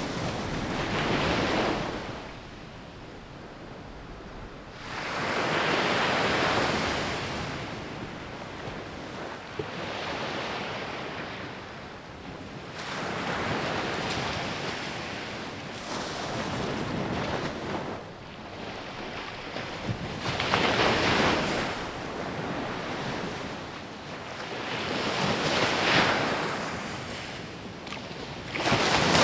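Ocean waves breaking on a sandy beach, the surf swelling and washing back in slow surges every few seconds, with some wind on the microphone.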